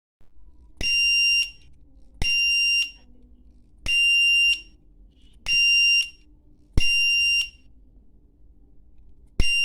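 Buzzer of a homemade UA741 op-amp fire alarm circuit, switched by a transistor, sounding six high-pitched beeps of about two-thirds of a second each at uneven intervals, each starting with a click: the alarm tripping.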